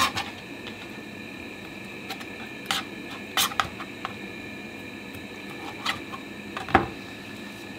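Kitchen knife knocking and scraping on a plastic cutting board while a horse mackerel is filleted: a few scattered sharp taps, the loudest near the end, over a steady hum of kitchen equipment.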